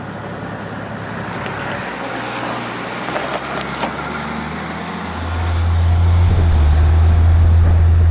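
A 2020 Chevy Silverado 1500's 3.0 Duramax inline-six turbodiesel running, heard at the exhaust tip. About five seconds in it gets much louder, a deep steady drone.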